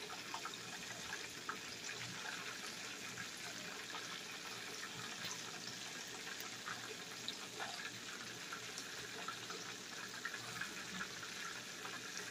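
Chicken wings deep-frying in peanut oil in a cast-iron skillet: a steady sizzle with scattered small crackles.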